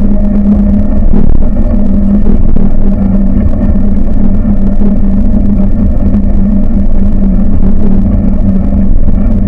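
A buggy's engine running at a steady speed: a loud, even drone over a deep rumble, with no change in pitch.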